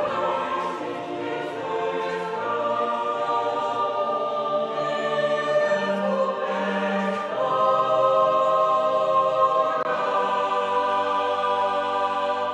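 A choir singing long held chords that change every few seconds, fading out at the end.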